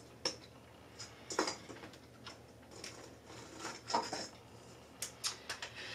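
Faint, scattered light clicks and rustles from hands working a decorated picture frame, hanging ornaments and string, with a few small knocks about a second in, near four seconds, and a short cluster after five seconds.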